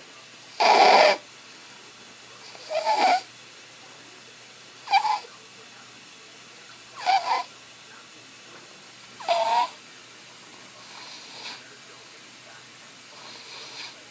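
Sleeping baby's stridor: seven rough, hissing breaths with a pitched, whistly tone in them, about every two seconds, the last two fainter. The noisy breathing comes from a narrowed airway after his tracheostomy tube was removed.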